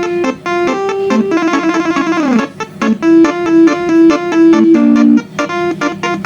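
A 12-trumpet telolet basuri bus horn set, switched by a MIDI controller, playing a quick tune of short, clear notes, sometimes two or three sounding together. About a second and a half in, a run of notes slides down in pitch together.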